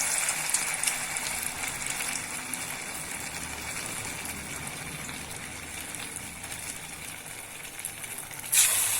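Aval (flattened-rice) vadai deep-frying in hot oil in a kadai: a steady sizzle that eases a little, then suddenly gets louder again near the end.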